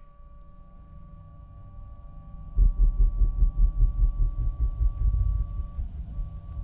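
Electronic sci-fi sound design: two steady synthetic tones, one high and one lower, held on. About two and a half seconds in, a loud, rapidly pulsing low rumble comes in under them.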